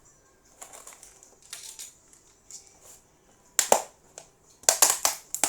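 Plastic slime container lid being pressed shut: a series of sharp clicks and crackles, sparse at first and then coming thick and loud in the second half.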